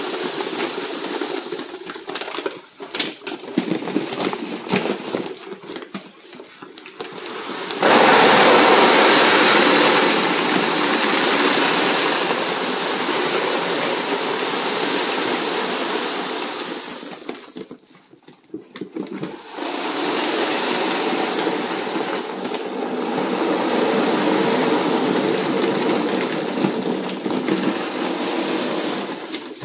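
Dried split chickpeas (garbanzo beans) pouring from a sack into a foil Mylar bag lining a 5-gallon bucket, a dense rushing hiss of beans hitting the foil. The pour is uneven for the first few seconds, then runs steady. It breaks off briefly just past halfway before starting again.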